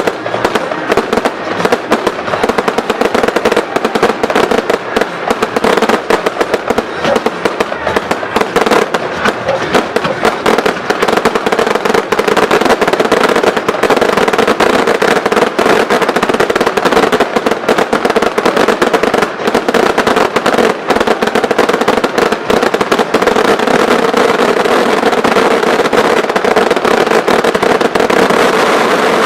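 Fireworks finale: a dense, continuous barrage of bangs and crackles with no gaps, loud and steady throughout.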